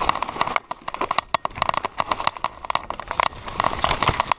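Mountain bike clattering down a rough dirt trail: a rapid, irregular run of rattling clicks and knocks from the bike and its wheels jolting over roots and stones.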